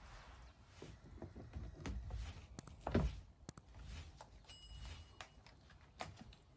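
Quiet handling noises: scattered taps and knocks, with one louder knock about three seconds in and a brief faint electronic beep a little after.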